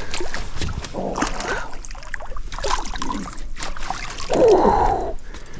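A hooked crappie splashing and thrashing at the water's surface as it is reeled to the boat and swung out, with water dripping and small clicks from the rod and reel, and a louder burst a little after four seconds in.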